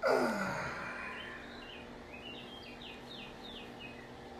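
A man's voiced sigh as he stretches, falling steeply in pitch over about half a second. It is followed by a bird chirping a quick run of about six short, high, falling notes.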